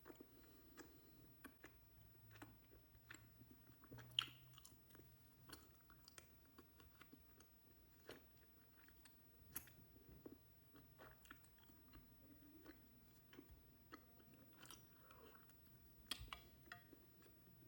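Quiet mouth sounds of someone chewing ice cream with chewy honey-filled rice cakes (ggultteok): soft wet smacks and scattered small clicks, the sharpest about four seconds in and a few more together near the end.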